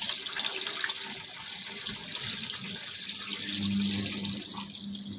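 Water being poured by hand from a bucket into a front-loading washing machine for the final rinse: a steady rush of water. A low steady hum comes in past the middle.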